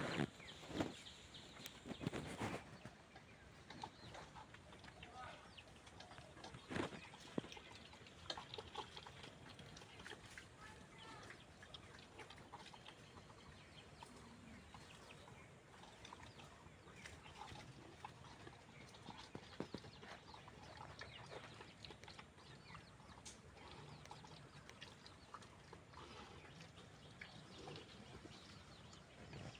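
Desi pigs in a pen, faintly moving and snuffling, with scattered clicks and knocks. A few louder knocks come in the first couple of seconds.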